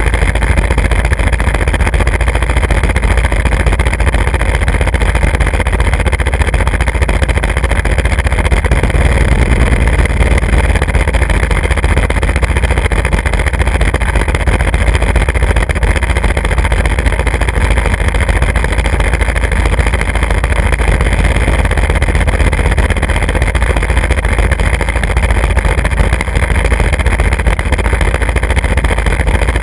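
Vehicle travelling along an asphalt road: a loud, steady rush of wind on the microphone and road noise, unchanging throughout.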